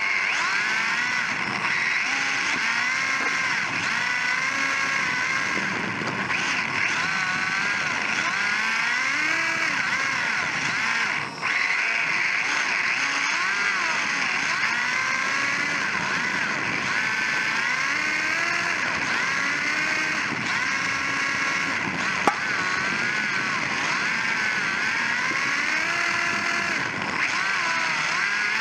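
Electric motor and gear drivetrain of a Sakura D4 RC drift car whining, heard from a camera on the chassis, the pitch rising and falling over and over as the throttle is worked. One sharp click about three-quarters of the way through.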